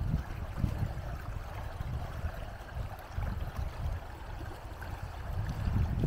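Shallow river running over stones: a steady watery rush. Under it, irregular low rumbling gusts on the microphone.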